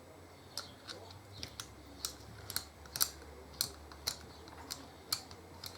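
Sharp metallic clicks, about two a second at uneven spacing, from a hand tool working the bolts into a motorcycle brake caliper.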